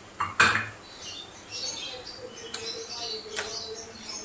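A few sharp knocks of a utensil against a metal cooking pan, the loudest about half a second in, with short high bird chirps in the background.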